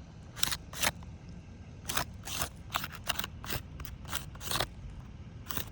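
A string of irregular short crunching clicks and scrapes, about fifteen over a few seconds.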